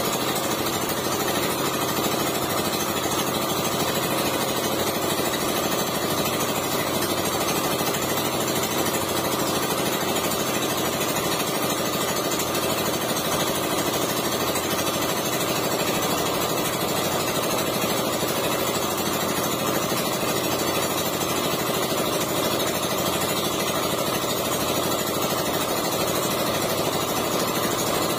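Engine aboard a bamboo outrigger fishing boat running steadily, with a fast, even pulse.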